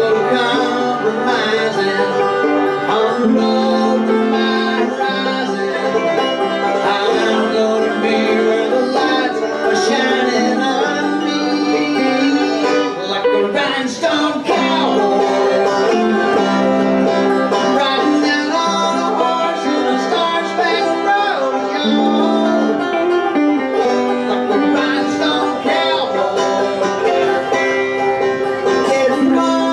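Live bluegrass duo playing: banjo picking together with an electric guitar, at a steady, even volume.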